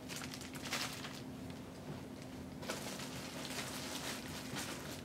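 Clear plastic bag crinkling and backpack fabric rustling as they are handled, in a short spell in the first second and a longer one from about halfway to the end.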